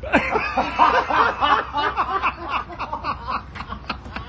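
Men laughing, breaking out suddenly and going in quick repeated bursts that ease off near the end.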